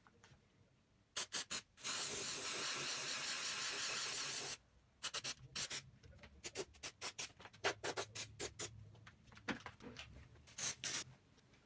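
Aerosol can of paint remover spraying onto a painted metal panel: three short spurts, then a steady hiss for about two and a half seconds. A run of short, sharp crackles and clicks follows.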